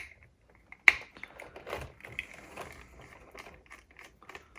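Screwdriver undoing small screws in a cassette deck's tape transport: a sharp click about a second in, then a run of light, irregular metallic clicks and ticks.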